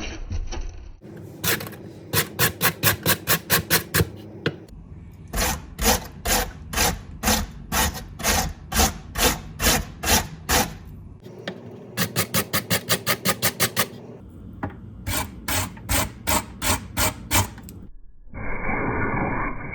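Potato being grated by hand on a metal grater: quick rhythmic rasping strokes in four runs with short pauses between them. A steady hiss follows near the end.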